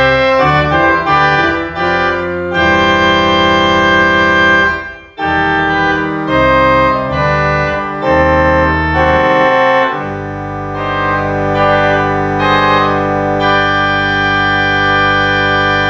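Organ playing a church prelude in sustained chords, the bass notes moving beneath them. There is a brief break between phrases about five seconds in, and from about ten seconds one full chord is held to the end.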